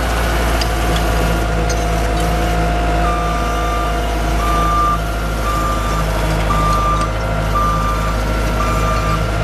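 Terex PT70 compact track loader's diesel engine running steadily. About three seconds in, its reverse alarm starts beeping, about once a second, as the machine backs up.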